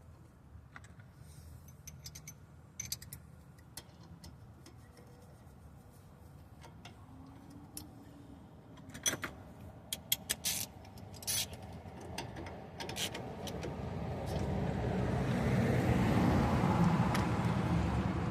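Light metallic clicks and clinks of wrenches and bolts during suspension work. Over the last several seconds a passing vehicle's rumble rises and grows loudest.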